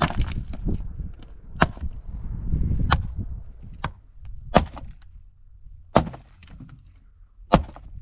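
Axe chopping firewood: seven sharp blows at irregular gaps of about a second.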